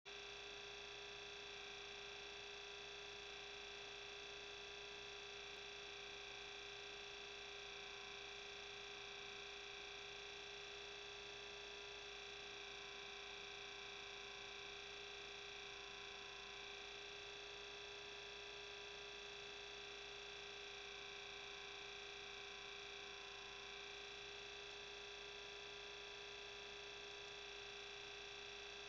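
Faint steady electronic hum and whine, several fixed tones that never change: electrical noise in the recording, with no other sound.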